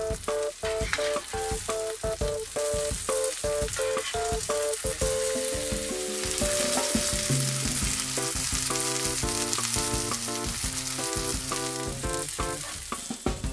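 Salmon fillets sizzling steadily as they fry in hot fat in an iron frying pan, with background music playing over it.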